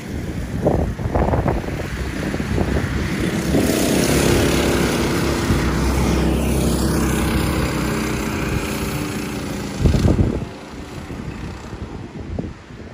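A racing go-kart engine runs steadily past for several seconds, with wind buffeting the microphone at the start and in one loud gust about ten seconds in.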